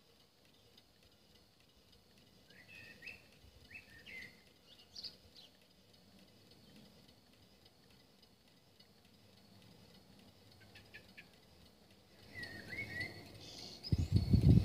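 Faint, scattered bird chirps, a few short rising calls, with a few light ticks. A loud low rumble sets in near the end.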